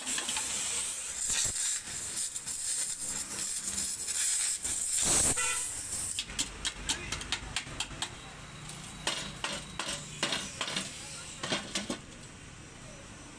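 Gas torch hissing as its flame works on the rusted steel shell of a scooter silencer. About six seconds in this gives way to a run of sharp metallic taps and scrapes as a hand tool chips out rust and slag from the cut-open hole.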